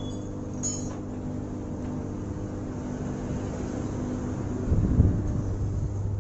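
Steady low mechanical hum, with a brief low rumble about five seconds in.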